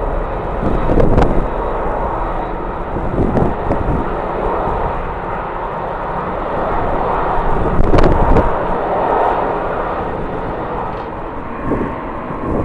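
Airliner engines running, a loud steady rush of engine noise, with strong wind gusting on the microphone.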